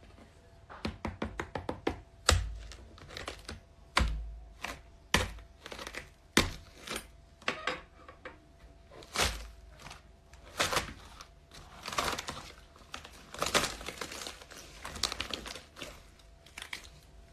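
Slime being squished and pressed by hand: a run of sharp sticky clicks and pops, with a few heavier knocks, and some longer, wetter squelching stretches in the second half.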